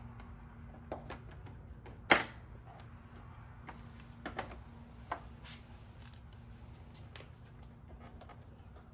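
Plastic side fairing panel being pressed onto a Kawasaki Z H2: a string of light plastic clicks and taps, with one loud, sharp snap about two seconds in.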